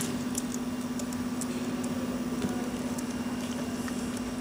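A steady low electrical hum, with a few faint light clicks as wires are fitted to an amplifier's speaker terminals.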